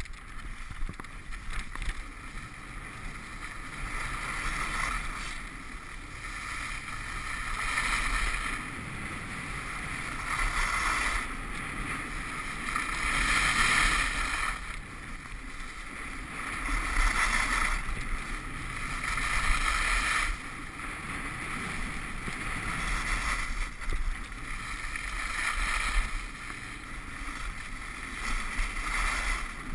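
Skis hissing and scraping over packed snow as a skier runs a slalom course, with wind rushing past a helmet or body-mounted GoPro in its housing; the rushing noise swells and fades every two to three seconds with the turns.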